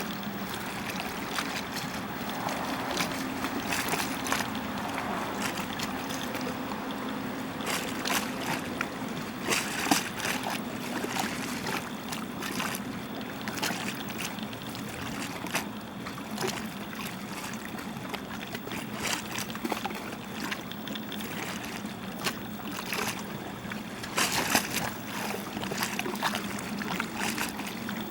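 Steady rush of moving water with a faint low hum underneath and scattered sharp clicks throughout.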